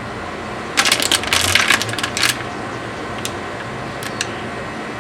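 Loose coins clinking and rattling in a quick cluster for about a second and a half, then a few single light clicks.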